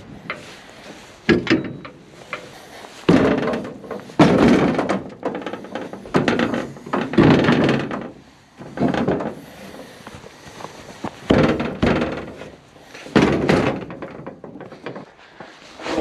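Aluminium loading ramps being handled and stowed on a steel trailer: about ten irregular heavy knocks and clatters, with lighter rattling between them.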